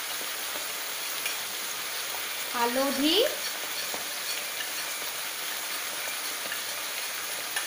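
Mixed vegetables (eggplant, radish, potato, cabbage) frying in hot oil in a wok, a steady, even sizzle, with a wooden spatula working through them.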